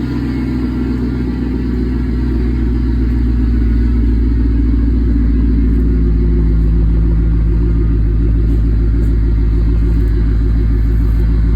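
Chevrolet Camaro SS V8 engine idling steadily in the cold, with a deep, even note that grows slightly louder over the first few seconds. It is running hard enough to be felt shaking the ground.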